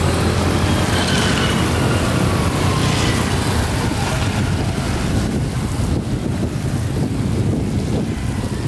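Steady wind rumble on the microphone mixed with road traffic noise, with a few faint falling tones in the first few seconds.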